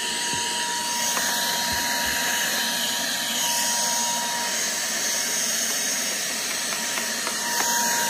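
Vacuum cleaner running steadily with a constant high whine, sucking dust and pet hair out from around a refrigerator's condenser coils.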